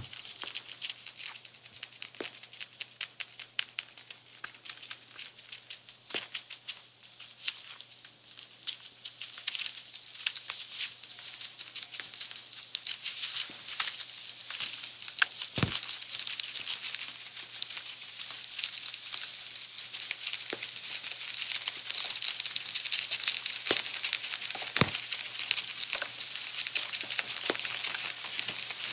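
Two pet rats gnawing and crunching kernels off a corn cob, close up: a rapid, continuous stream of small crunches and nibbles that gets busier and louder about a third of the way in. Two sharper knocks stand out, one past the middle and one near the end.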